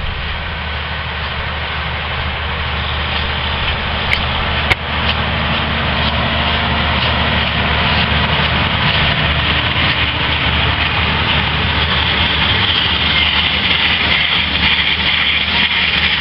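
Tractor engine running steadily under load with field machinery, growing gradually louder, with a sharp click about four and a half seconds in.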